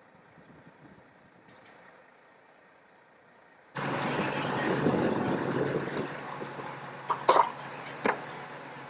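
A semi truck's diesel engine running, a steady low hum under a rushing noise, starting abruptly about four seconds in after faint background. Two sharp short sounds near the end.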